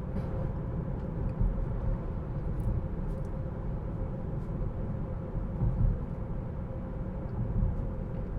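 Road and tyre noise heard inside a moving Tesla Model 3, a steady low rumble with a faint steady hum above it.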